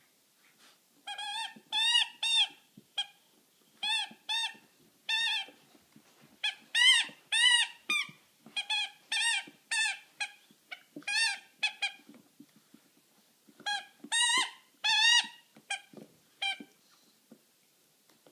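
Squeaky rubber rooster toy being chewed by Labrador puppies, squeaking over and over in short pairs and quick runs, with faint chewing clicks in between.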